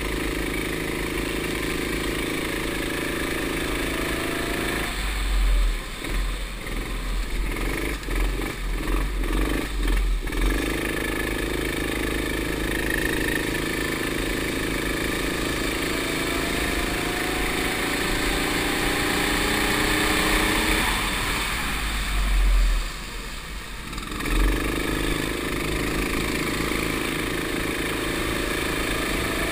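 Go-kart engine heard onboard, pulling hard with its pitch slowly climbing along the straights, dropping away twice for a few seconds (about 5 and 21 seconds in) as the driver lifts off for corners, then pulling again. Low wind rumble on the microphone throughout.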